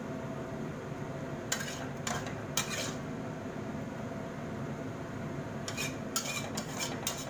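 Metal spatula scraping the bottom of a steel wok and clinking on a ceramic plate while scooping out stir-fried tomato and egg: three short scrapes about a second and a half in, then a quicker run of scrapes near the end, over a steady low hum.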